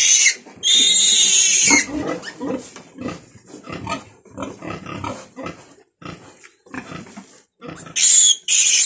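Newborn piglet squealing in distress while held and handled for its umbilical cord to be cut. Loud, high squeals come at the start, with one lasting about a second. Softer short grunts follow, and two more loud squeals come near the end.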